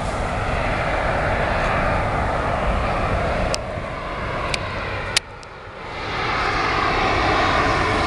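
Boeing 777-200ER jet engines on final approach, a steady rushing noise that dips briefly in the middle, then swells toward the end as the airliner nears. A few sharp clicks sound around the middle.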